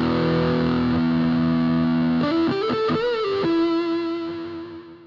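Intro jingle on distorted electric guitar: sustained chords, then a bent, wavering note a little over two seconds in, settling on one held note that dies away near the end.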